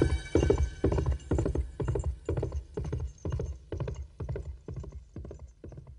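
Horse hooves galloping in a steady beat of about three strikes a second, growing steadily fainter until they almost die away. The tail of the music fades out at the start.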